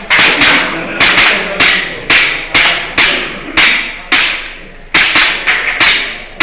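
Airsoft handgun firing a steady string of single shots, about two a second with a few quicker pairs, each shot sharp with a short ringing tail.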